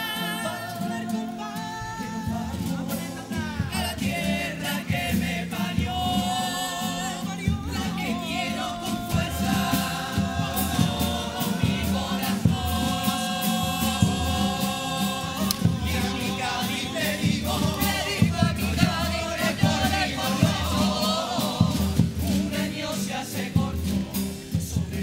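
Cádiz carnival comparsa of young male singers performing a song in several-part harmony, backed by Spanish guitars and a drum beat that grows denser about nine seconds in.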